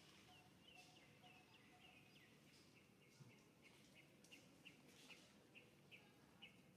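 Faint bird chirping: a steady run of short, high chirps, about three a second, over quiet background hiss.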